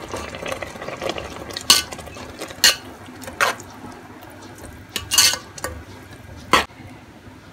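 Metal spatula stirring wet vermicelli in a metal cooking pot, knocking and scraping against the pot about six times.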